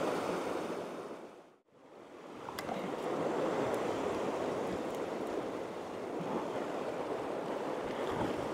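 Sea surf washing over a rocky shore, a steady rush of waves. It cuts out for a moment about a second and a half in, then carries on.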